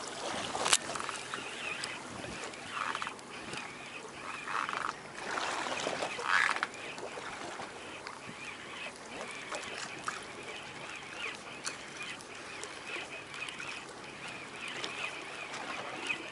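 Small baitcasting reel being cranked in by hand, a light whir over steady wind and sea noise. A few short, louder sounds come in the first seven seconds.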